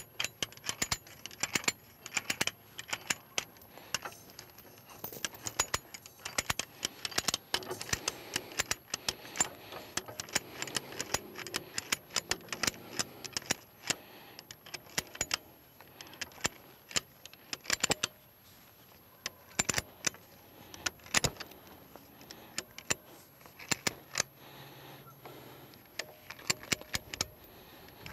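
Hand-operated come-along (ratchet cable puller) being cranked, its ratchet giving runs of sharp metallic clicks with brief pauses as it takes up tension to stretch woven wire fencing.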